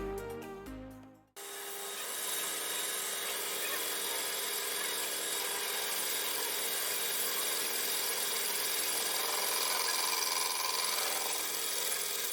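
A power tool working on material in the workshop, a steady rasping hiss that runs without a break after background music fades out about a second in.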